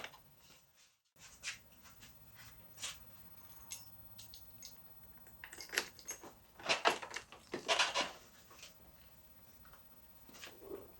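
Light clicks, taps and rustling of hands handling motorcycle seat parts, with a few louder bursts of rattling about halfway through and again shortly after.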